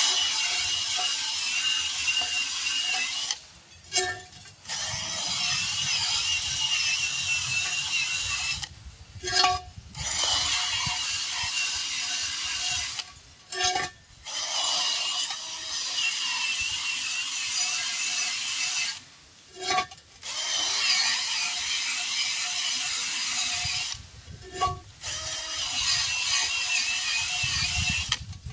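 Cordless power tool spinning a wire wheel brush against a wheel rim, scouring the tire bead seat clean. It runs in six bursts of a few seconds each with short pauses between, a high grinding scrape over a wavering motor whine.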